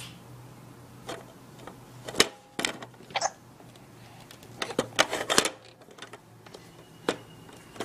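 Plastic toys on an Evenflo Exersaucer Jump & Learn activity centre being knocked and rattled: a string of sharp clicks and clacks, bunched around two to three seconds in and again around five seconds in.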